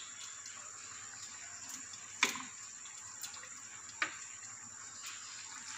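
A metal spoon clinking lightly against a cooking pot while sauce is scooped out: two sharp clinks, about two and four seconds in, and a couple of fainter taps. Under them is a faint steady hiss.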